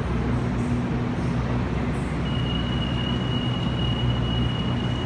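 A Waratah A-set electric train stands at the platform with its doors open, its onboard equipment humming steadily under a low hiss. About two seconds in, a steady high-pitched tone starts and holds.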